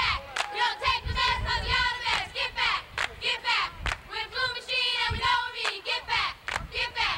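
Football crowd shouting and cheering in many overlapping voices, with sharp claps scattered throughout.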